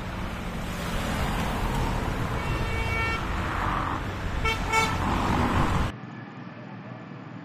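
Busy city road traffic with vehicle horns tooting twice, the second one louder. It cuts off suddenly near the end to a much quieter background.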